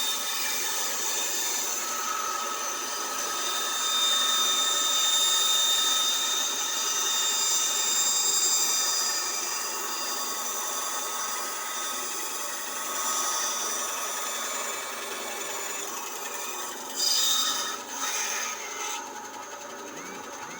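Power tool cutting knife-handle stock: a steady motor whine over a continuous grinding noise, with a few louder bursts near the end.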